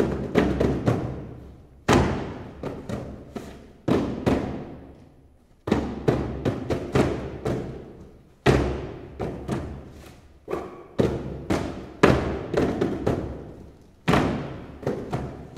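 Percussion ensemble playing paper instruments, cardboard boxes and paper sheets, in unison: clusters of sharp thumps and slaps, a new phrase starting every two to three seconds, each ringing out in a reverberant hall.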